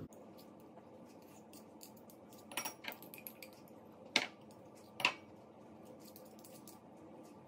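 Metal spoon scooping curry paste from a jar and scraping and tapping it into a ceramic bowl: a few light clinks, the sharpest about four and five seconds in, over quiet room tone.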